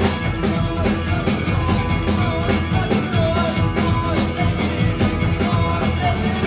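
Live rock band playing: electric guitars over steady, driving drumming, with a percussionist beating a standing drum with sticks.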